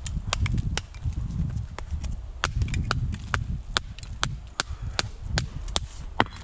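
Old clay brick being struck repeatedly with another brick to knock a lump off its underside: sharp knocks, about two to three a second, over a low rumble.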